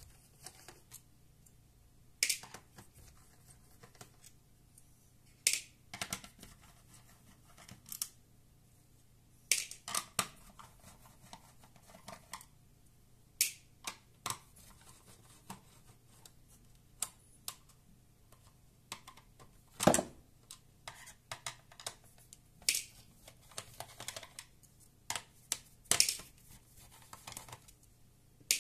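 Irregular sharp clicks and taps of a small screwdriver working the screws out of a Toshiba Portege R830 laptop's plastic underside, with one louder knock about twenty seconds in.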